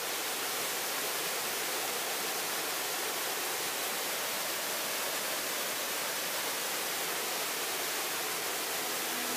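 Small woodland waterfall cascading over rocks: a steady, even rush of water.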